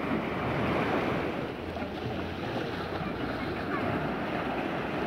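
Small sea waves washing in and splashing against a rock breakwater, a steady rushing surf, with wind buffeting the microphone.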